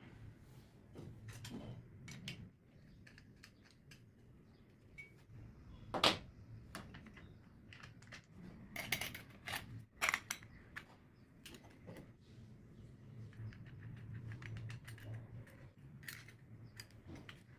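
Scattered light clicks, taps and knocks of small hard parts being handled, with the loudest knocks about six and ten seconds in and a faint low hum underneath.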